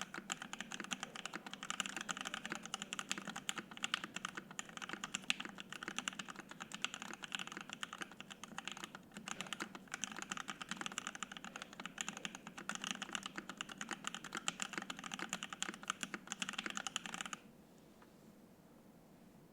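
Fast, continuous typing on a Savage65 top-mount 65% mechanical keyboard with an FR-4 plate, Lavender linear switches lubed with Krytox 205g0 and filmed, and PBT keycaps. The keystrokes stop abruptly a couple of seconds before the end.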